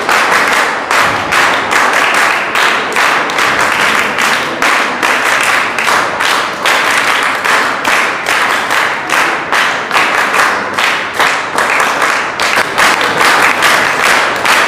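An audience clapping in sustained, dense applause.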